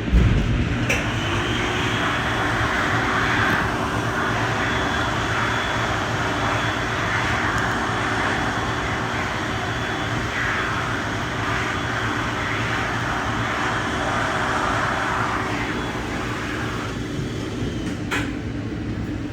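Amtrak passenger train in motion, heard from inside the coach. After a thump at the start, the wheel and rail noise swells loud with a steady hum for about sixteen seconds, then falls back to a quieter rumble.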